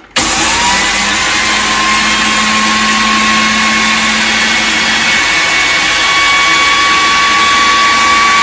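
Kenwood Multi-Pro food processor with its spice-mill jar grinding dry-roasted cumin, coriander seed and dried red chillies to powder. The motor switches on suddenly, its whine rising briefly as it spins up, then runs steadily and loudly.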